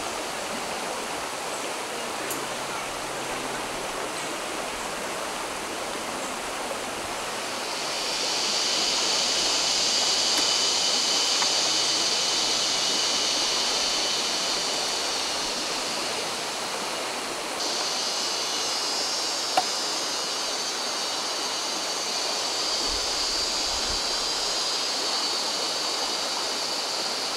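Shallow rocky stream running steadily, with a higher hiss joining about eight seconds in and one sharp click a little before twenty seconds.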